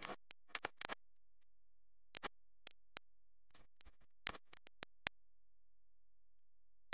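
Quiet background music: sparse, very short plucked or clicking notes at an uneven pace.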